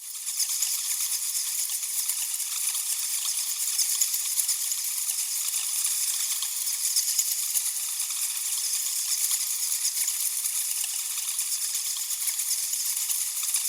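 A colony of bats chittering and squeaking at once: a dense, steady, high-pitched chatter of many small calls.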